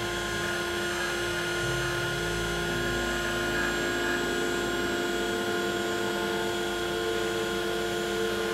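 CNC router spindle motor running steadily, with a set of steady tones, while the axis stepper motors add lower tones that shift pitch a few times in the first half as the 3 mm ball-nose cutter is moved slowly down toward the wood before it starts cutting.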